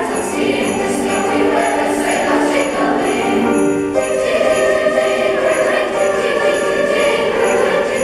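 Middle school chorus singing a Christmas song with accompaniment, over sleigh bells jingling on a steady beat about twice a second. The held notes change to a new chord about halfway through.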